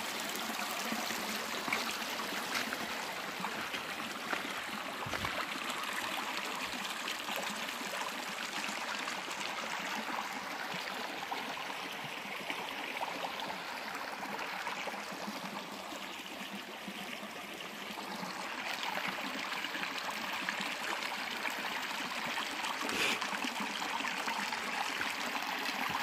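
A mountain stream flowing with a steady rush of water that eases a little about two-thirds of the way in. There is one short knock near the end.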